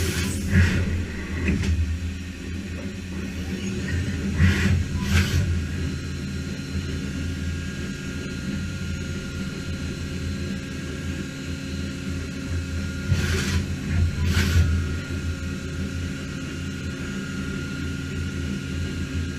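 Matsuura MAM72-35V 5-axis CNC machining center running: a steady low mechanical hum with a few constant tones, broken by short hissing bursts twice about 4.5 to 5 seconds in and twice again about 13 to 14.5 seconds in.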